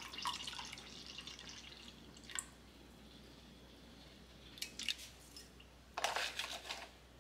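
Water at a kitchen sink: a run from the tap trails off in the first couple of seconds, followed by drips and a few small clicks. About six seconds in comes a short, louder splash of water.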